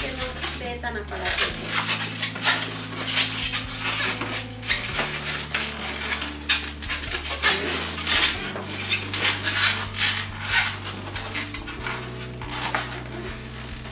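Inflated latex modelling balloons squeaking and rubbing against each other as they are twisted and pressed together by hand, in many short, irregular squeaks.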